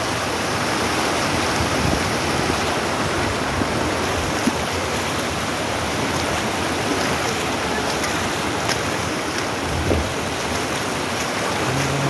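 Shallow river rushing and splashing over rocks close to the microphone, a steady, even water noise.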